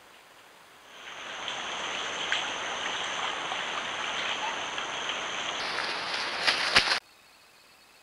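A steady rushing noise, like rain or running water, that builds over the first second or two and then holds, with a high steady whine over it. A few sharp clicks come near the end, and then it cuts off suddenly.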